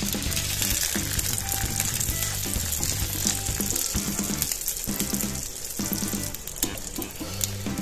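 Butter sizzling and crackling in a frying pan around a filled flatbread as it fries, a steady high hiss that is strongest in the first half. Background music plays underneath.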